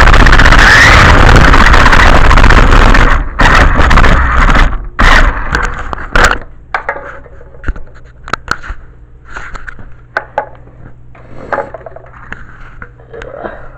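Toy RC car driving, its electric motor and tyres making loud, distorted scraping noise for about six seconds, then dropping to scattered light clicks and knocks over a faint hum.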